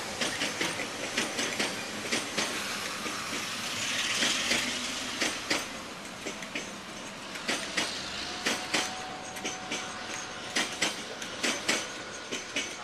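A passing train's wheels clattering over rail joints, an irregular run of sharp clicks and knocks. A rushing hiss swells about four seconds in, and a faint steady whine comes in during the second half.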